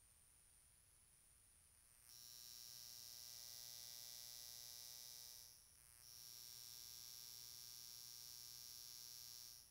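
Faint, steady, high-pitched insect buzz that starts about two seconds in, breaks off for a moment near the middle, then resumes until near the end.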